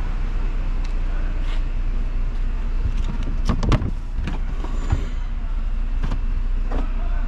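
Carpeted boot floor cover of a car being handled and lifted: a few short knocks and rustles, the loudest about three and a half seconds in, over a steady low rumble.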